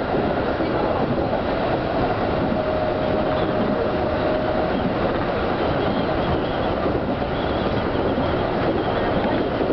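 Seibu 101 series electric train running at speed, a steady rumble of wheels and running gear heard from inside the leading car. A faint steady whine sounds for a few seconds near the start.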